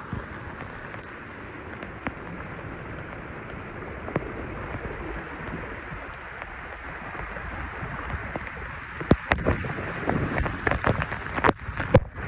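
Steady rush of water and wind noise while riding through a flooded street on two-wheelers. In the last few seconds come a series of sharp, loud knocks and clatters.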